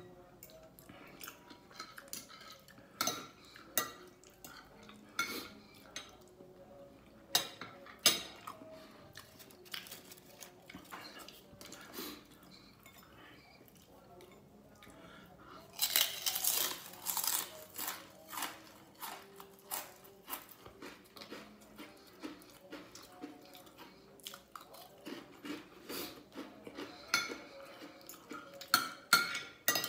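Metal spoon and fork clinking and scraping on a ceramic plate while eating, in scattered sharp clicks that bunch up near the end. A little past halfway there is a longer, denser burst of noise.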